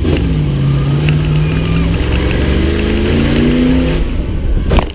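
Race-prepped Jeep's engine pulling hard from inside the stripped cab: it holds a steady note, then its pitch climbs as the truck accelerates. Just before the end comes one loud bang as the truck is jolted over the rough dirt course, and the engine note drops away after it.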